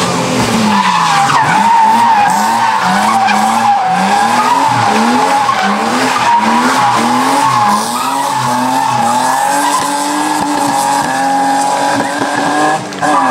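BMW E30 race car sliding through a hairpin with its tyres squealing. The engine note surges up and down about twice a second as the wheels spin, then holds a steadier, higher pitch near the end as the car pulls away.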